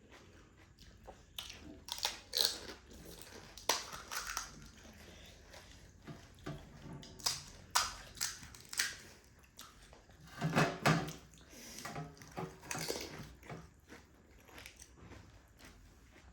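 Close-up mouth sounds of eating pani puri: the crisp puri shells crunching and being chewed wetly, in irregular bites. There is one louder, longer burst about ten and a half seconds in.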